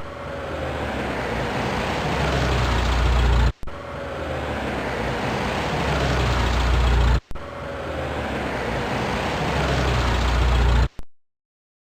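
A motor vehicle's engine running and growing steadily louder over about three and a half seconds, heard three times in a row with brief breaks between. It cuts off abruptly near the end.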